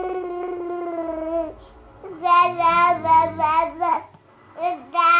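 Young child babbling and vocalizing without words: one long, held high-pitched "aaah", then a run of wavering sing-song babble, and another short burst near the end.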